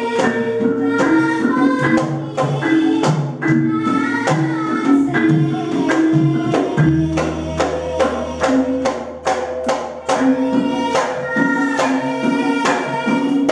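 Javanese gamelan playing palaran: rapid, ringing metallic strikes from bonang and kenong kettle gongs under a girl's voice singing a Javanese tembang through a microphone. A deep low tone sets in about seven seconds in and rings on.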